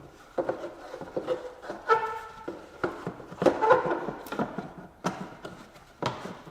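Hand tools working on bolts and plastic parts in an engine bay: irregular clicks, knocks and scraping as a socket and extension loosen nuts on the cabin air filter bracket, with a short squeaking tone about two seconds in.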